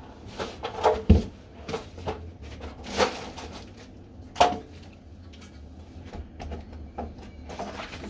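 A run of knocks and clicks from tools and hardware being handled, the loudest a heavy thump about a second in, with the clatter thinning out to faint ticks after about four and a half seconds.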